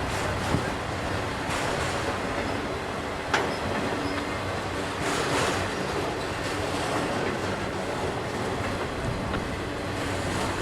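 A freight train's cars rolling steadily past, the wheels clicking over the rail joints, with two sharp clanks about half a second and about three seconds in.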